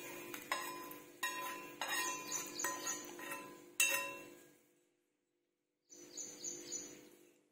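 Metal spoon clinking and scraping against a small non-stick frying pan as tempering is scraped out into a bowl of chutney, about seven light ringing clinks over four seconds. The sound then cuts out, and a fainter scraping sound follows near the end.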